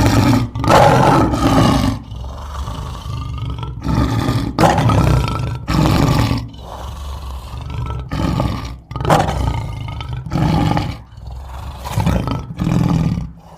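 A big cat roaring: a series of loud roars and grunts, one every second or two.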